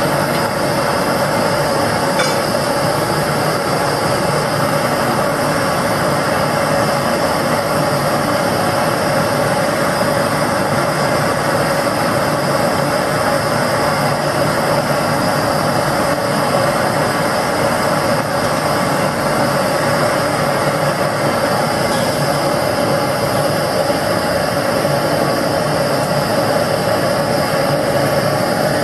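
LPG gas burner firing a small crucible furnace melting scrap aluminium, giving a steady rushing sound with a constant tone in it. A couple of faint clicks sound over it, about two seconds in and again near the end.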